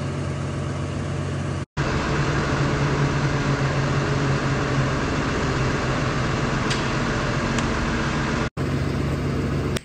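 Tractor engine idling steadily, with two faint ticks about two-thirds of the way through.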